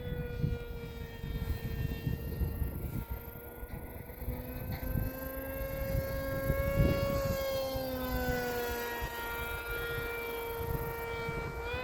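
Ford Bronco's drivetrain giving off a steady whine with several overtones. The whine climbs a little in pitch about seven seconds in and eases back down, over a low engine and road rumble.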